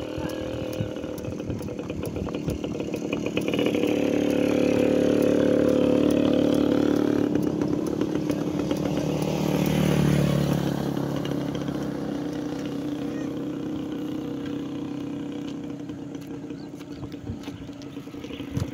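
Motor vehicle engines on the road with a steady drone, one passing close and loudest about ten seconds in.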